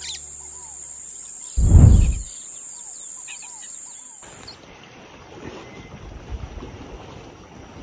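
Birds chirping over a steady high-pitched insect drone, with one brief low thump, the loudest sound, about two seconds in. A little after four seconds the drone stops and a softer, even noisy background remains.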